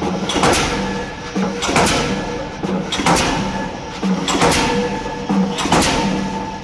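K25 diesel pile hammer driving a spun concrete pile, its heavy blows landing about once every second and a bit, five in all, over a steady mechanical hum.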